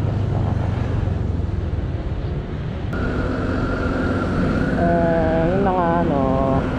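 Honda Click 125i scooter's single-cylinder engine running while riding, with road and wind noise. In the last two seconds a pitched sound with several tones wavers up and down over it.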